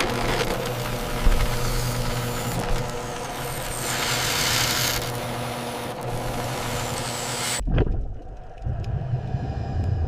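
Drill bit grinding hard with a dense, steady mechanical whine and hiss, loudest about halfway through. It cuts off suddenly near the end and gives way to a low rumble of drilling underwater.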